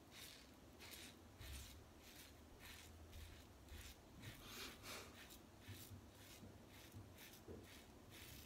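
Faint, quick scraping strokes of a Gillette Fatboy double-edge safety razor with a Treet Platinum blade cutting lathered stubble on the neck, about two strokes a second.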